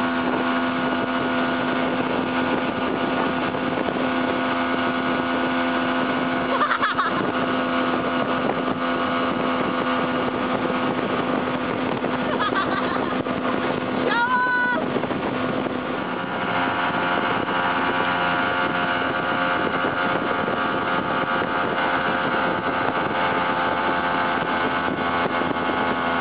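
Motorboat engine running steadily at speed while towing an inner tube, with water rushing in the wake. A short high-pitched tone sounds briefly about halfway through.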